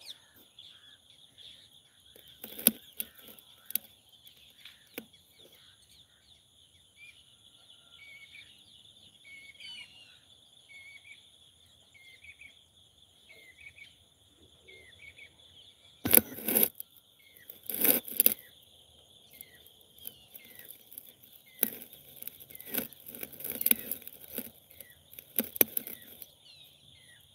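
Outdoor ambience: a steady high drone of insects with a bird repeating short falling chirps. A few loud bursts of rustling noise come a little past the middle and again near the end.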